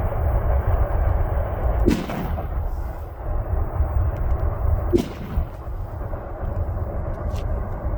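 Two rifle shots about three seconds apart, each followed by a rolling echo, with a fainter sharp crack near the end. Under them runs the steady low rumble of a departing CN freight train.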